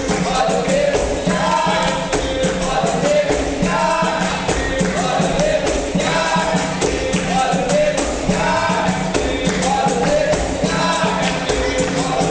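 Capoeira music: a group singing in short repeated phrases over the jingling beat of a pandeiro and other percussion.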